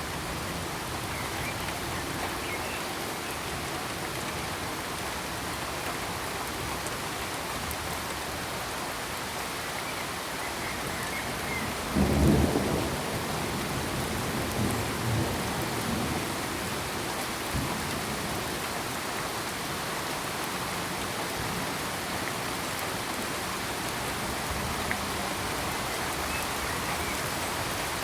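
Steady heavy rain hissing, with a loud thunderclap rumbling in about halfway through and a few weaker rolls of thunder trailing after it.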